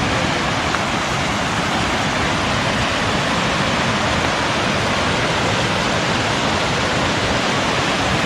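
Creek water rushing steadily at the water's edge, an even, unbroken wash of sound.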